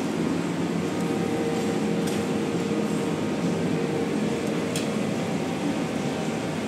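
Steady low room noise of a buffet restaurant with a faint hum running through it. Two faint clinks come about two and five seconds in.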